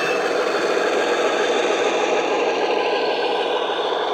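Dapol Class 52 'Western' model diesel locomotive running by, its ESU sound decoder playing the SWD recording of the Western's twin Maybach diesel engines through an EM1 speaker, together with the scraping rattle of the model running on the track as it passes closest.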